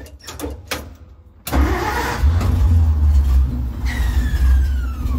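A few faint clicks, then the Dodge M37 wrecker's engine starts suddenly about a second and a half in and settles into a steady idle. Near the end a falling whine sounds over the idle.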